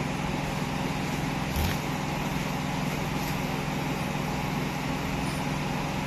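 Steady mechanical hum with a hiss of background noise, unchanging throughout, and a faint knock about one and a half seconds in.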